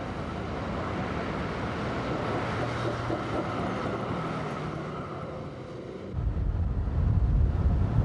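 Z3-class tram running past close by: steady running noise with a low hum and a faint whine. About six seconds in, a louder, uneven low rumble takes over.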